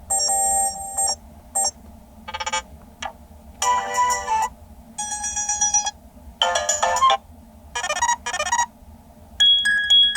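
Ringtones previewed one after another on a Toscido X109's speaker: about eight short electronic melody and chime snippets, each under a second, each a different tune, with brief gaps between them.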